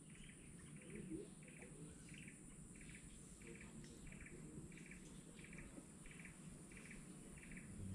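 Faint, evenly repeated chirping from a small wild creature: a short pulsed chirp about every two-thirds of a second, over a steady high hiss.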